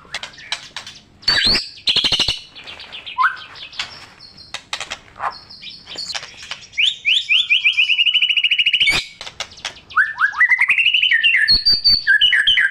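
White-rumped shama (murai batu) singing a long, varied song that mixes mimicked phrases. Rapid rattling clicks come first, then a fast series of short falling notes in the middle, and quick rising whistled notes toward the end.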